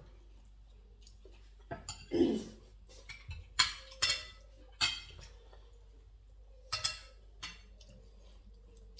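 Spoons and forks clinking and scraping against plates while people eat: a handful of sharp clinks, the loudest in the middle, with a short muffled thud about two seconds in.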